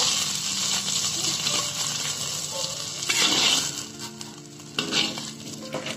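An egg sizzling as it fries in hot oil in a wok, with a few sharp scrapes of a metal spatula against the wok. The sizzle grows quieter about two-thirds of the way through, as the egg is lifted out of the oil.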